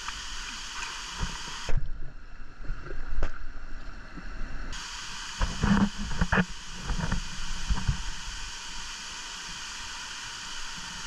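Water splashing and sloshing in a waterfall plunge pool over the steady rush of the falls. About two seconds in, a loud splash and the sound goes muffled for about three seconds as the microphone goes under the water, then more splashes as it comes back up.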